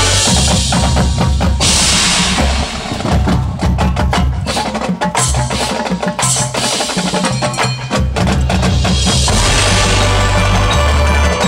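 High school marching band playing its field show: low sustained bass notes and pitched band tones, with a stretch of dense, rapid percussion hits through the middle and bright crashes near the start and about two seconds in.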